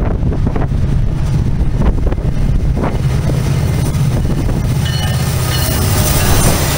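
Norfolk Southern diesel freight locomotive approaching and passing, its engine's low rumble building over the first few seconds. Thin high squeals join in about five seconds in, as the wheels come by.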